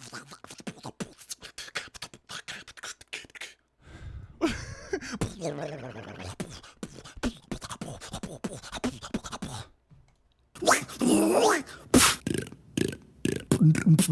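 Beatboxer imitating sound effects with the mouth: a run of rapid clicks, then a long vocal sound sliding up and down in pitch. About eleven seconds in comes a loud gliding squeal, followed by sharp clicks and a fast buzzing rhythm near the end.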